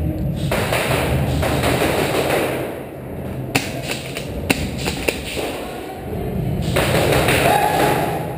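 Rustling of clothing and gear and dull thumps from an airsoft player on the move, in two long stretches. Three sharp cracks fall in the middle.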